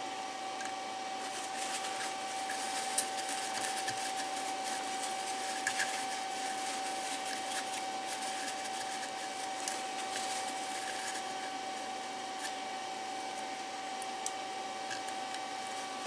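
Hot air rework gun blowing steadily to dry a circuit board: a constant whooshing hiss with a steady whine, and a few faint clicks.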